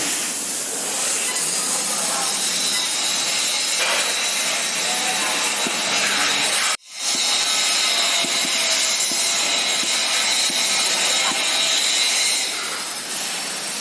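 CNC fiber laser cutting steel plate: a steady hiss with a high, steady whine through it. The sound cuts out abruptly for a moment about halfway through.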